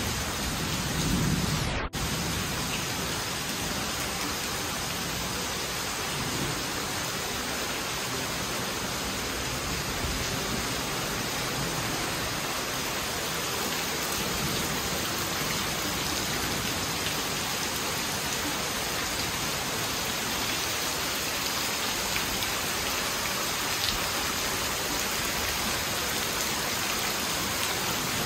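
Heavy rain falling steadily onto waterlogged grass and standing puddles, an even dense hiss of drops hitting water.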